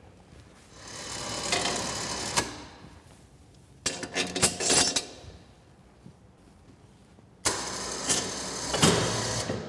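ATV's front-mounted electric winch running in three short bursts, each switching on and off abruptly. It pays out the cable, then winds it in to lift the plow frame until the frame hooks fully engage the chassis mount.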